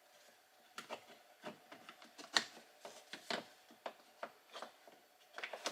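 A door trim cover plate is being fitted back into the inside of a car door, giving a run of small, irregular clicks and taps. The sharpest comes about two and a half seconds in.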